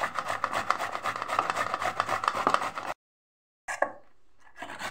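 Firm halved tomato rubbed back and forth on a round stainless-steel grater, a quick run of rasping strokes. About three seconds in the sound cuts to dead silence for under a second, then the grating comes back fainter.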